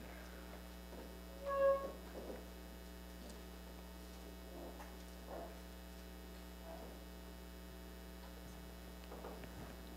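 Quiet room with a steady electrical hum and a few faint stray sounds. About one and a half seconds in there is a brief single-pitched squeak.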